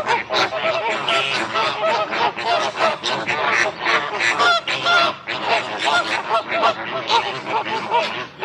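A flock of flamingos honking, with many short calls overlapping continuously.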